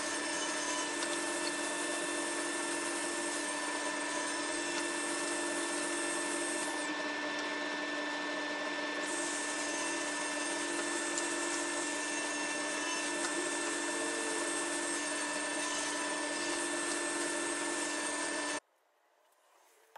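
SawStop cabinet table saw running steadily while hickory and walnut boards are ripped through the blade; the sound cuts off suddenly near the end.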